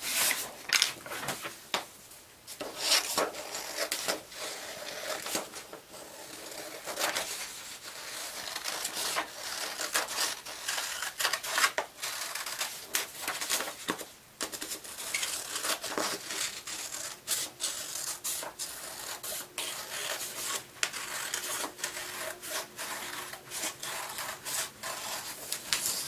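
Scissors cutting through a large sheet of construction paper in a quick run of repeated snips, with the paper rustling as it is turned.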